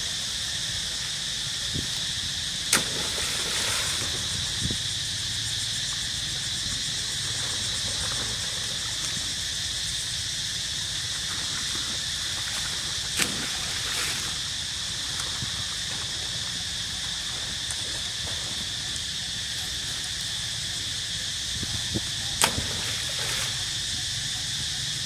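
A steady, high-pitched chorus of insects, with three sharp clicks spread through it.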